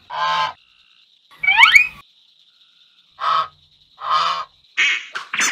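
A series of short duck-like quacks and honks, six separate calls with gaps between them. The loudest, about a second and a half in, slides upward in pitch. A faint steady high whine sits under them.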